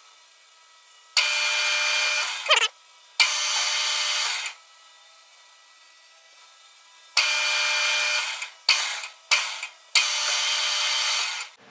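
Metal lathe's spindle motor running in several short runs of about a second and a half, each starting and stopping abruptly with a whine, as a single-point threading tool takes very light passes to bring an M18 x 1.0 external thread to depth.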